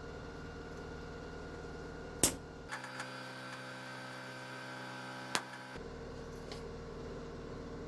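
A steady electrical mains hum. A sharp click comes about two seconds in, and a different buzzing tone then runs for about three seconds. A second click comes just before the buzz stops and the plain hum returns.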